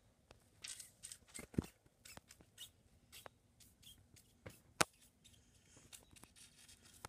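Faint handling noise: scattered light clicks and short scratchy rustles, with one sharper click about halfway through.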